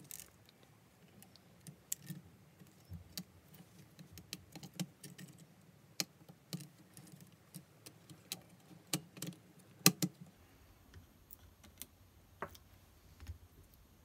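Scattered light clicks and taps of a circuit board and 3D-printed plastic case parts being handled and pressed together, the sharpest click about ten seconds in.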